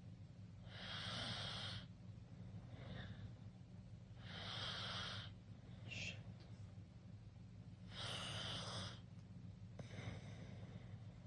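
Teenager snoring in sleep with the mouth wide open: three loud, hissy breaths about every three and a half seconds, with a shorter one between, over a steady low hum.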